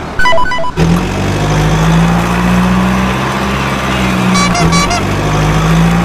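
A steady low vehicle drone with a few even low tones. A short run of stepped electronic beeps comes at the very start, and a quick burst of repeated high beeps comes about four and a half seconds in.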